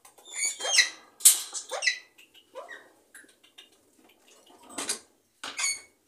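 Pet parrots under covered cages calling: several short squeaky squawks and whistles, some sliding in pitch, with a sharp noisy burst about a second in.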